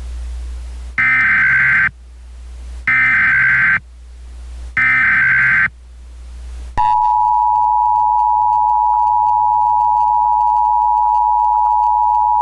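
Emergency Alert System SAME header: three short bursts of warbling data tones, each about a second long and a second apart, which encode the alert's details. About seven seconds in, the steady, loud two-tone EAS attention signal begins. A low hum and hiss run underneath.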